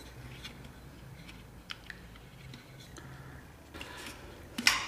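Faint clicks and crackles of hands handling the plastic blocks and screws on a ceiling fan's motor housing, with a short louder scrape near the end.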